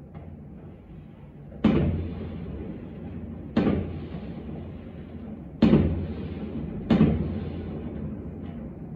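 Fireworks going off: four loud bangs about two seconds apart, the last two closer together, each trailing off in a long rumbling echo among the tower blocks, with a faint fifth bang near the end.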